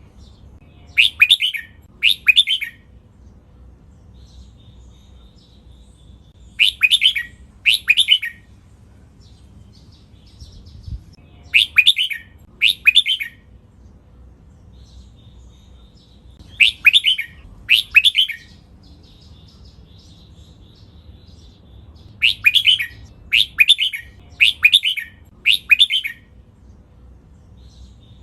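Red-whiskered bulbul singing its doubled song: short, loud warbled phrases given in pairs about a second apart, a pair every five seconds or so, then four in a row near the end, with faint soft twittering between.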